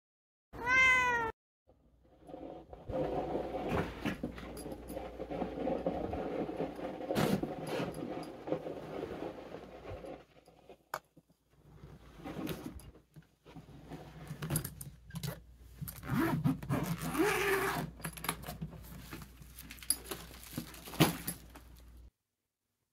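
A domestic cat meows once, short and loud, about a second in. Then comes a long stretch of rustling, clicking and clatter as a soft-sided fabric suitcase is handled and opened on the floor.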